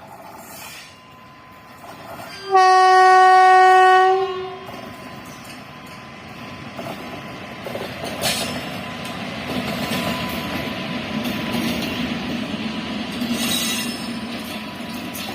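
Train horn sounded once, a single steady note held about a second and a half. Then the rumble and wheel clatter of a fast train grows louder as it comes through.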